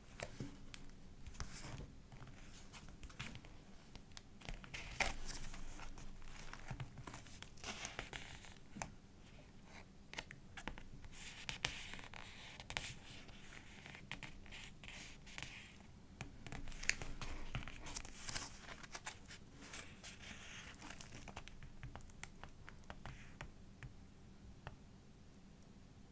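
Paper pages of a thick scrapbook-style journal being turned and handled: rustling and crinkling with many small taps and clicks, coming in uneven bursts.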